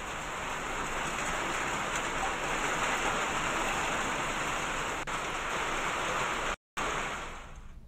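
Heavy rain and hail pouring down, a dense steady hiss. It cuts out for a split second about six and a half seconds in, then fades near the end.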